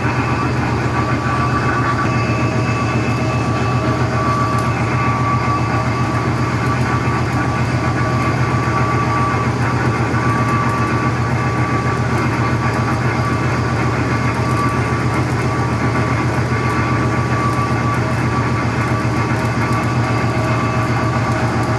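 Heavy diesel engine running steadily under load, with a constant low, rapid throb and a faint steady whine above it.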